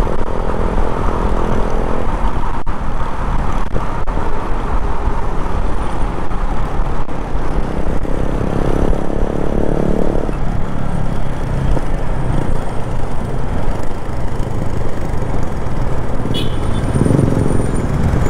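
Motorcycle engine running while riding, under steady wind rush on the microphone, with the engine getting louder for a couple of seconds around the middle and again near the end.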